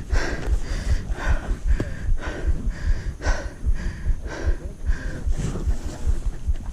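Hard, rapid breathing of a mountain biker out of breath from the climb, about two strokes a second, over an uneven low rumble on the microphone.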